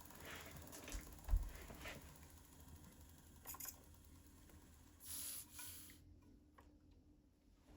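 Faint scattered clicks and light knocks of small metal parts being handled on a watchmaker lathe, with a short rustle about five seconds in, over a faint steady hum.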